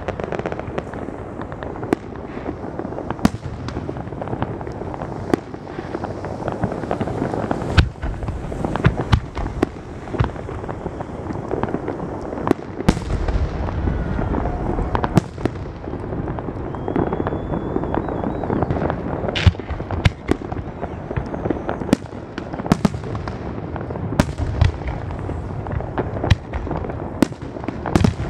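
Aerial fireworks display: a continuous stream of shell bursts with many sharp bangs and dense crackling between them. A faint whistle rises briefly about two-thirds of the way through.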